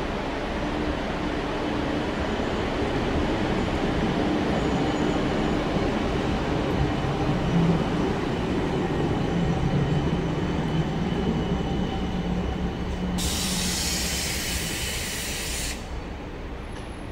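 CAF Urbos 3 light rail tram running past, a steady rumble of wheels on rail with a faint motor hum. A high hiss lasts about two and a half seconds near the end.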